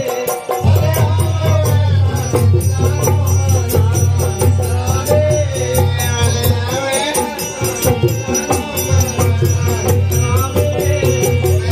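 Live Pahadi folk music: a singer's wavering melody over hand drums and fast clicking percussion, with a heavy low sound underneath that drops out briefly a little past halfway.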